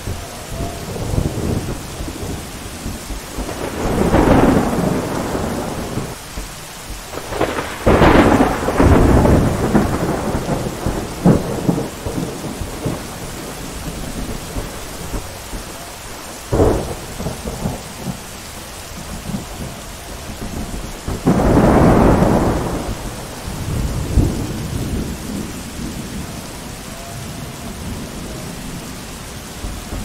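Steady rain falling through a thunderstorm, with several rolls of thunder that swell and fade, the loudest about 8 and 22 seconds in, and a short sharp crack about halfway through.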